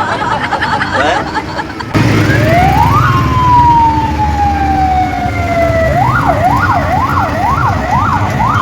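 Police siren starting abruptly about two seconds in: a quick rise, a long slow fall, then fast up-and-down sweeps a little over twice a second, over a low vehicle engine rumble.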